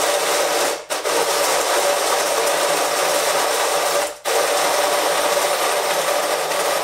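WPM electric burr coffee grinder grinding coffee beans: a loud, steady grinding noise that cuts out for an instant twice, about a second in and about four seconds in.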